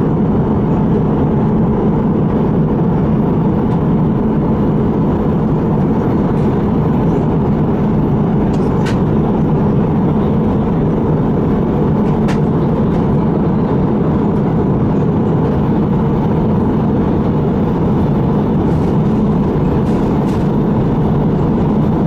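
Steady cabin noise of an Airbus A320 in flight: the hum of the jet engines and the rush of air over the fuselage, heard from a window seat as the airliner descends through cloud. A couple of faint clicks come through about 9 and 12 seconds in.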